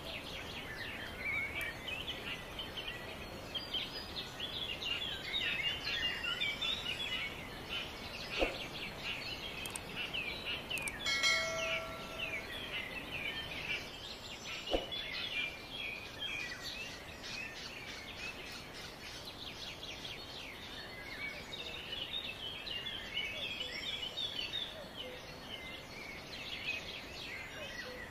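Many birds chirping and calling at once in a busy, steady chorus. Two short knocks and one brief pitched call stand out partway through.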